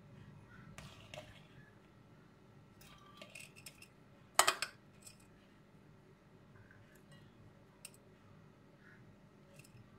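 Metal spoon scooping raw rice filling from a bowl and pushing it into green peppers: scattered faint scrapes and clicks, with one louder clink of the spoon about four and a half seconds in.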